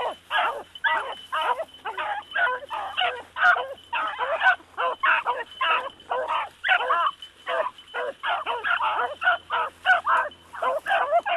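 Several dogs, adults and pups together, barking in quick, overlapping calls, a few a second, each call bending in pitch.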